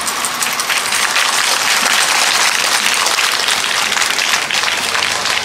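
Crowd applauding, many hands clapping in a dense patter that swells over the first second or two.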